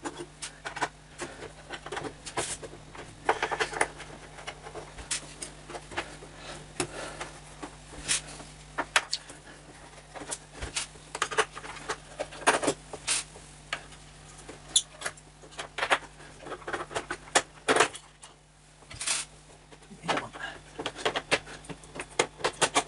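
Screwdriver work on the metal bottom panel of a Yamaha DX11 synthesizer: irregular small clicks, taps and rattles of the screwdriver and loose screws against the metal as the panel is unscrewed.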